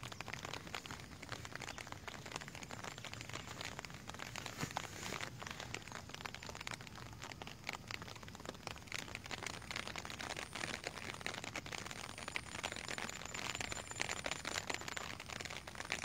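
Rain falling on flooded field water and grass: a steady, dense crackle of many small drops.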